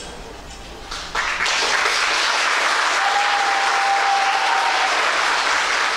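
Audience applause breaks out about a second in as the dance music ends, and keeps going steadily. A single steady tone is held for about two seconds in the middle.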